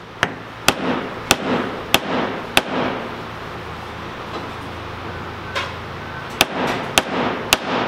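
Mallet striking a 7/16 socket used as a drift, driving a bearing into an MG overdrive planet gear: a run of five sharp taps about every half second or so, a pause, then three more near the end.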